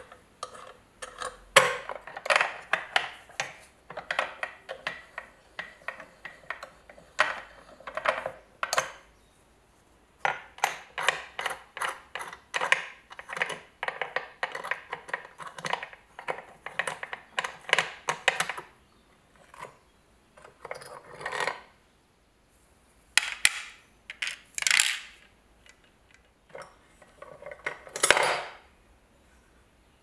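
Small rusty steel parts of a manual coffee grinder's top mechanism (acorn nut, crank bar, slotted nut, spring) clicking, scraping and clinking as they are unscrewed and handled by hand. Quick irregular runs of light metallic ticks with short pauses, and a few louder clinks in the last third.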